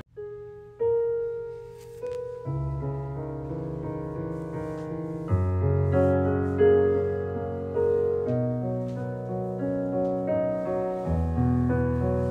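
Background piano music: a new piece begins with a few single notes, and low chords come in about two and a half seconds later.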